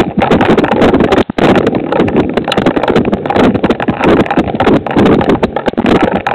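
Heavy rain striking a Ring doorbell camera and the surfaces right around it, heard through the doorbell's microphone as a loud, dense, rapid clatter of drops, with a brief drop-out about a second in.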